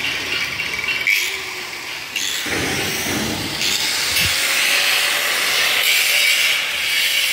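Handheld electric angle grinder running and grinding on steel, louder and hissier from about halfway.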